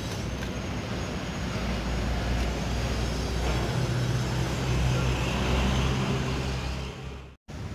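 A motor's low, steady mechanical rumble with a hum, growing louder over the first few seconds, then fading and cutting off abruptly near the end.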